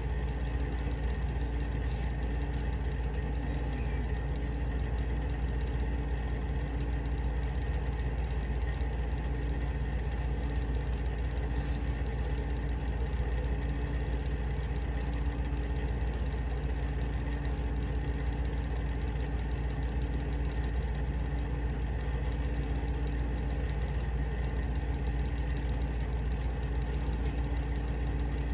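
A steady low machine hum, unchanging throughout, with a few faint steady tones held over it.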